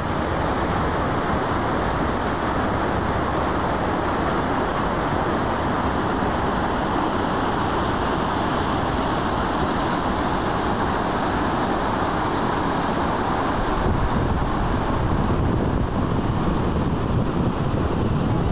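Rushing water of a boulder-strewn mountain river pouring through rapids: a loud, steady rush. A deeper rumble joins about fourteen seconds in.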